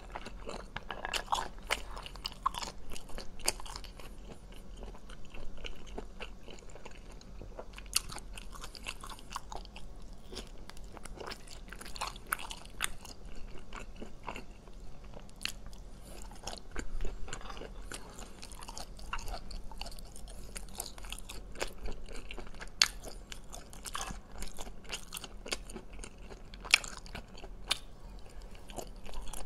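Close-up eating sounds of a person biting and chewing braised cat's eye snail meat taken from the shells, with many short sharp clicks and smacks scattered throughout.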